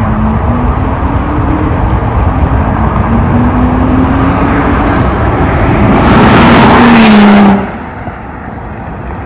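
BMW E46 with a swapped-in N55 turbocharged straight-six accelerating toward and past, its engine note slowly climbing in pitch on the approach. It is loudest as it goes by, then the pitch drops and the level falls off sharply about seven and a half seconds in as it pulls away.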